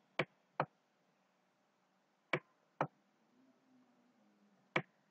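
Computer mouse button clicking: five short, sharp clicks, two quick pairs about half a second apart and then a single one near the end, the press and release of the button as short strokes are drawn in a paint program.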